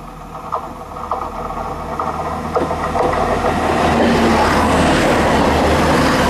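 A passenger train approaching and passing close alongside the platform. A few sharp clicks come from the wheels as it nears, then a loud, steady rush sets in from about three seconds in as the cars go by.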